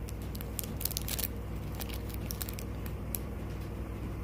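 Clear plastic wrapping crinkling as a cellophane-wrapped roll of elastic gauze bandage is handled, in short scattered crackles over a steady low hum.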